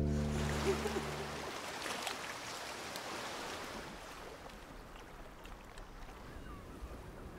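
A held music chord cuts out about a second and a half in, leaving a soft, steady wash of sea ambience: water and waves with a faint rushing hiss.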